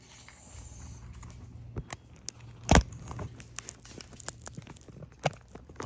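Handling noise from a phone being fitted into a small stand: scattered clicks and rubbing, with one loud knock a little before the middle, over a low hum.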